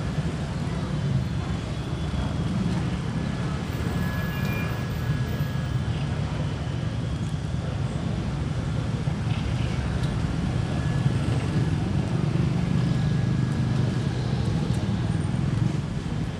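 Steady low rumble of street traffic, with a vehicle engine running close by.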